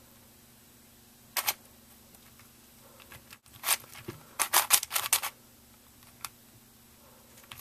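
Meffert's Venus Cube, a pillowed 3x3 twisty puzzle, clicking as its layers are turned during a solve: a couple of clicks about a second and a half in, then a quick flurry of clicks around the middle and a single click near the end.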